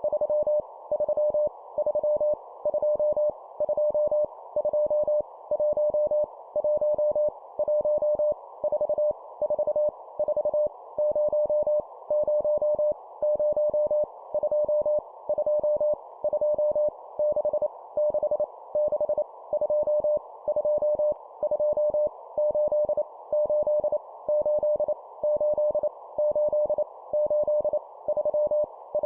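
Morse code at 25 words per minute: a single steady mid-pitched tone keyed in dots and dashes, sending random numbers with each one repeated three times, over a faint steady hiss.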